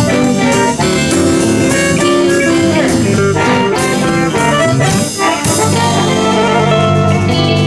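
Live blues band playing an instrumental passage, with saxophone and electric guitars over bass and drums. About five and a half seconds in, the drum strokes thin out under long held notes.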